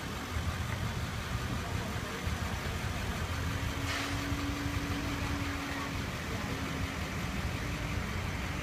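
Parked van-type ambulance's engine idling: a steady low rumble, joined about three seconds in by a low steady hum that comes and goes. A brief hiss comes about four seconds in.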